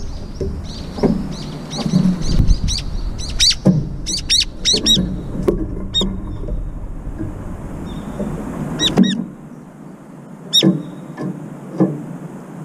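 Brown-eared bulbuls calling at a balcony feeder: sharp, down-slurred notes in quick clusters a few seconds in and again around nine and ten seconds in, with short knocks from pecking at the metal food bowl. A low traffic rumble runs underneath and drops away about nine seconds in.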